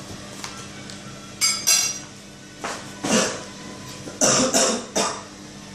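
A woman laughing under her breath in a few short, breathy bursts.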